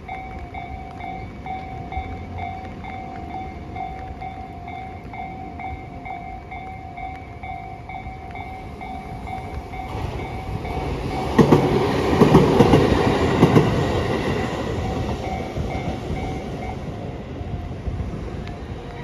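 Japanese level-crossing warning bell ringing in an even, repeating rhythm while a train passes. The train builds from about ten seconds in and is loudest for a couple of seconds, its wheels clattering over the rail joints, then fades. The bell stops a few seconds after the train has gone.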